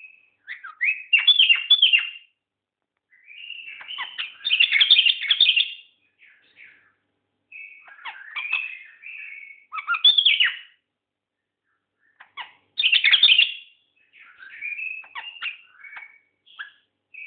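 White-eared bulbul singing: short phrases of rapid chirps and whistled notes, in bursts of one to two seconds with short pauses between them.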